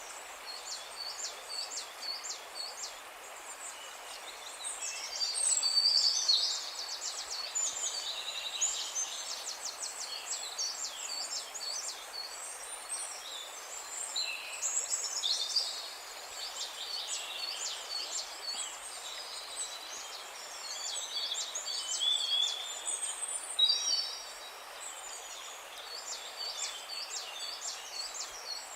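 Songbirds singing and chirping, several overlapping songs of quick repeated high notes and trills, over a steady background hiss.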